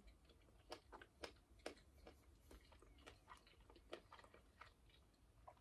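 Faint chewing of food: soft, irregular clicks and small crunches, a few a second.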